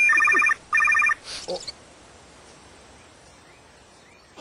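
Mobile phone ringtone: rapid pulsing high electronic tones in two short bursts that stop about a second in. A brief faint sound follows, then only quiet background.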